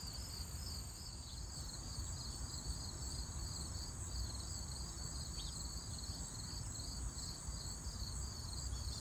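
Crickets calling: a steady high trill with a regular, rapid pulsing chirp just below it, over a low steady rumble.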